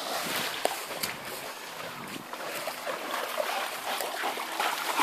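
Water splashing and trickling in a shallow stream as a dog wades through it, with scattered small clicks and rustles.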